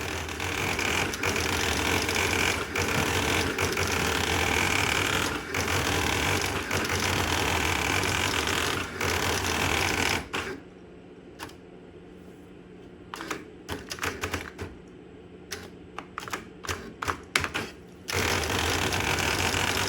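Thimble printer terminal printing, a fast continuous clatter of type strikes for about ten seconds. Then comes a quieter stretch of scattered single strikes, and the rapid clatter starts again near the end.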